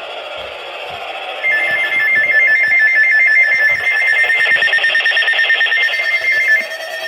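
Weather radio receiver sounding its alert for an incoming NOAA Weather Radio flood warning: radio hiss, then about a second and a half in a loud, high, warbling two-tone alarm that lasts about five seconds and gives way near the end to a quieter pulsing tone.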